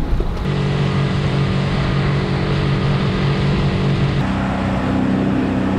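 Outboard motor of a small RIB running steadily under way, over wind and water noise; its pitch steps to a new level about four seconds in.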